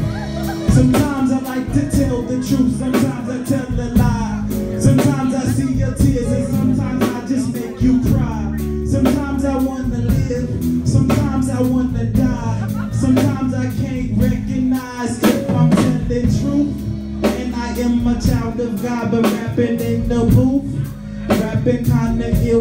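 Live band playing a steady groove, a drum kit keeping the beat over sustained bass, with a man singing into a microphone over it through the PA.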